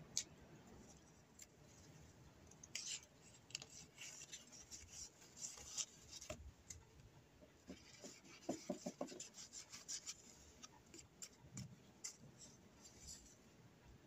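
Faint paper rustling and crinkling as hands handle and tuck card and paper pieces into a paper envelope, with a sharp tap just at the start and many short crackles through the middle.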